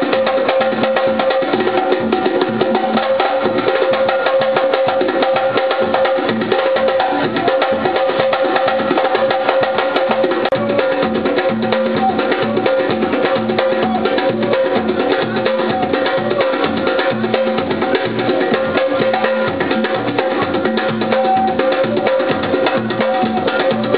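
Live drumming: a group of drums played in a fast, dense, unbroken rhythm, with a steady held tone sounding underneath.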